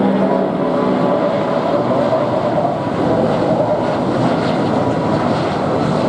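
Airbus A330's twin jet engines at takeoff thrust as the airliner climbs away just after liftoff: a loud, steady roar. Some humming engine tones fade into the roar in the first second.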